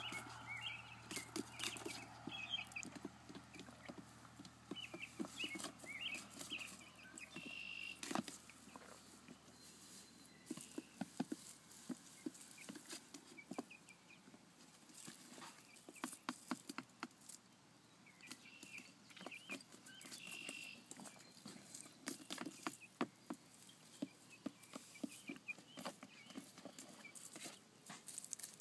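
Young chickens giving soft, short chirps in scattered clusters, with many light clicks and rustles of the birds scratching, pecking and moving about on grass and in a plastic crate.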